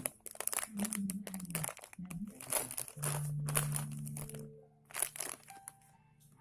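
Plastic wrappers of squishy toys crinkling in irregular bursts as the toys are squeezed and handled.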